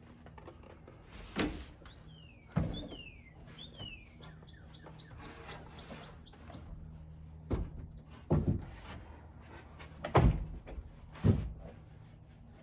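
Plywood box furniture knocking and thumping against the pickup's bed and tailgate as it is lifted in and set down, six separate knocks, the loudest two near the end. A bird gives a few falling chirps about two to three seconds in.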